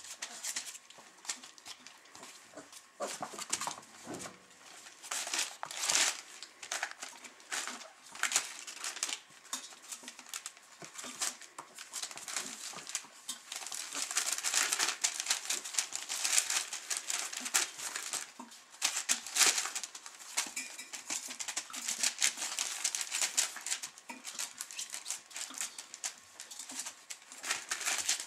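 A litter of young Weimaraner puppies scrabbling and playing: a busy patter of claws scratching and scuffling on bedding and newspaper, with paper rustling and brief puppy noises. The scuffling grows busier about halfway through.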